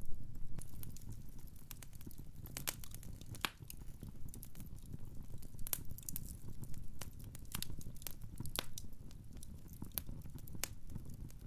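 Wood fire crackling: irregular sharp pops and snaps over a low steady rumble.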